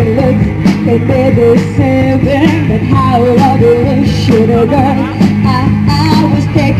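A band playing a rock-pop song: bass and drums with regular cymbal hits, under a lead melody that bends up and down in pitch.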